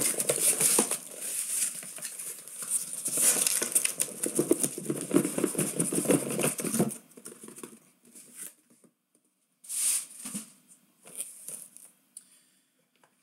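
A cardboard case of sealed trading-card boxes being opened and unpacked: tape tearing and cardboard scraping and rustling for about seven seconds, then a few short, scattered knocks and slides as the boxes are set out.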